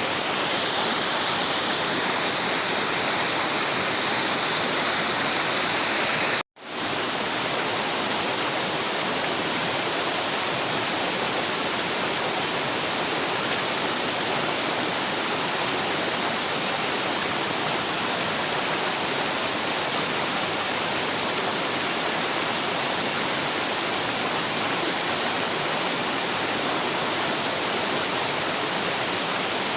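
Waterfall: a steady, full rush of falling water that cuts out for a split second about six seconds in, then carries on unchanged.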